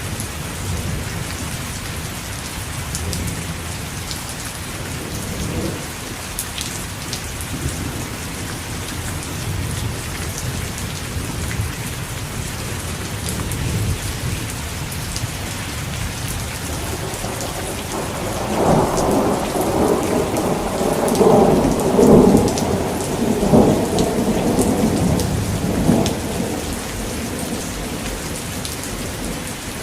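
Steady heavy rain falling, with low rumbling thunder underneath; a louder, longer roll of thunder swells up about two-thirds of the way through and dies away.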